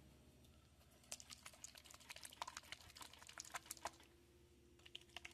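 Faint, quick, irregular clicking and tapping of a small plastic paint dropper bottle being handled, a run of a few seconds with a shorter run near the end.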